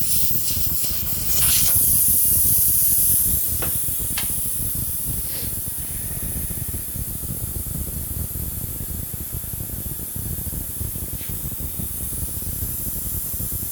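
Compressed air hissing: a loud, sharp hiss about a second and a half in lasts about two seconds, then settles into a fainter steady hiss as the inflation needle and air hose come off the basketball inflated behind the fender. A few light clicks are scattered through it.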